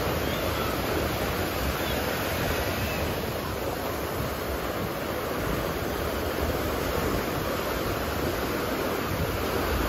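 Ocean surf: a steady rush of waves washing onto the beach.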